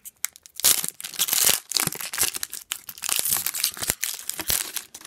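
Foil wrapper of an Upper Deck hockey card pack being torn open and crinkled by hand: a run of crackling, rustling tears.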